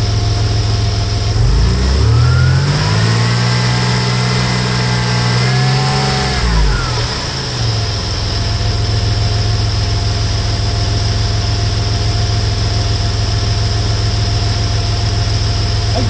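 1992 Toyota 4Runner engine idling during an A/C recharge, revved up about a second and a half in, held for a few seconds, then let fall back to a steady idle.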